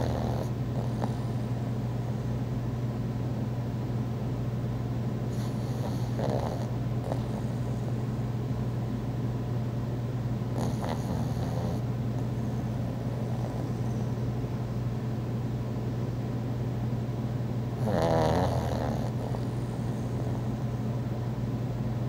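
Pug snoring in its sleep, with louder snores about 6, 11 and 18 seconds in, the last of them the loudest.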